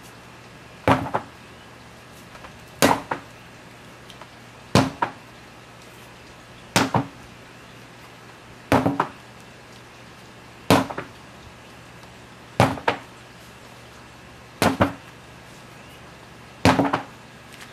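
Sledgehammer striking a large rubber tyre over and over, a heavy impact about every two seconds, nine in all, each followed by a quick smaller second knock.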